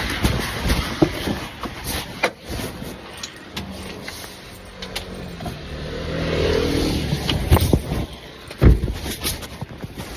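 Clicks, knocks and handling noises from working on a car's gear shifter while fitting a carbon-fibre shift knob. Midway a steady motor-like hum swells and fades.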